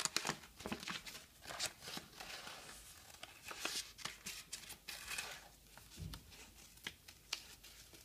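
Scissors cutting through paper in short, irregular snips, with the sheet rustling as it is handled and turned.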